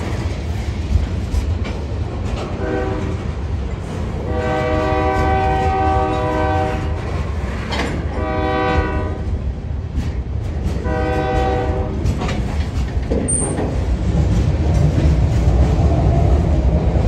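Freight locomotive's multi-tone air horn sounding four blasts, a short one, a long one, then two shorter ones, over the steady low rumble of the moving train. After a cut about 13 seconds in, the rumble of freight cars rolling past up close grows louder.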